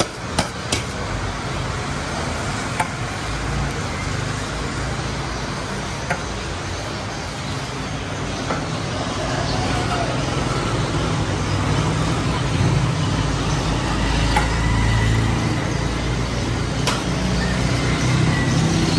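Steady street traffic noise with a low engine rumble that grows louder in the second half. A steel ladle clinks a few times against the pots and serving bowls.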